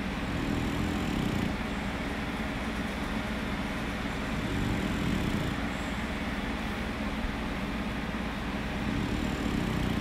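French bulldog snoring in its sleep: a low, rough rumble that swells slightly with each breath, about every four seconds.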